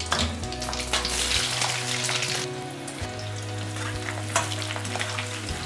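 Boiled potatoes sizzling as they fry in hot oil in a metal kadai, while a slotted spatula stirs them and scrapes the pan. The sizzling grows louder for about a second from about a second and a half in.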